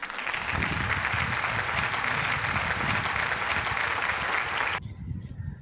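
Applause sound effect, a crowd clapping densely and evenly, that cuts off abruptly near the end over a low background rumble.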